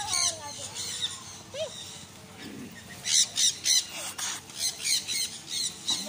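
Parrots squawking: a few shrill calls at the start, then from about halfway a quick run of loud, harsh squawks, about eight in three seconds.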